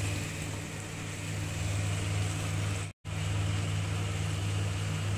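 A steady low hum with an even hiss over it, cutting out to silence for an instant about three seconds in.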